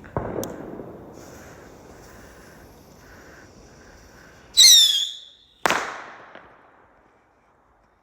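Fireworks: a bang at the start that dies away, then a loud whistling firework whose shrill whistle drops in pitch and holds for about a second, followed at once by a sharp bang.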